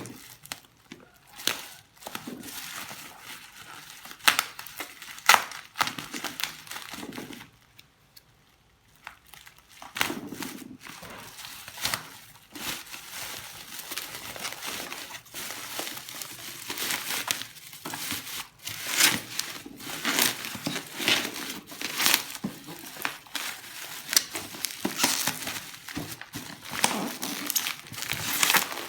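Packaging crinkling and rustling as it is handled and opened, with irregular sharp crackles and a short pause about eight seconds in.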